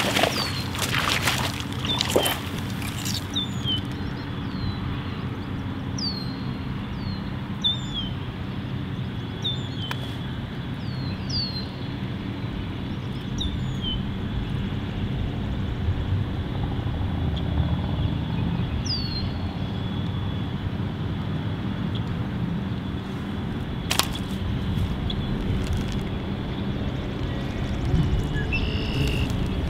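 A hooked largemouth bass thrashing and splashing in the shallows at the bank for the first couple of seconds, over a steady low rumble. A bird's short descending chirp repeats every second or two.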